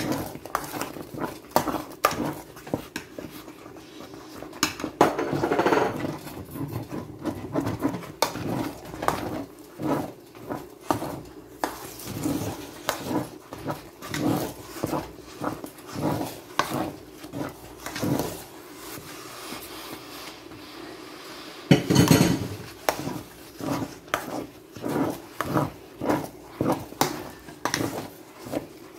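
A spoon stirring thick maize porridge (soor) in a stainless steel pot: repeated scraping and knocking against the pot, about one stroke a second, with a louder scrape near the start and another about two-thirds of the way through.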